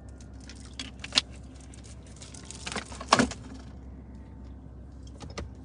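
A plastic drink bottle crinkling and clicking as it is handled, with a dense run of crackles and a few sharp clicks, loudest about a second in and about three seconds in. Underneath is the steady low road rumble of the car cabin.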